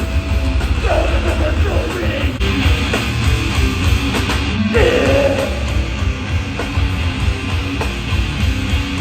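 Live band playing loud, heavy rock music with a thick low end, and vocals coming in at times.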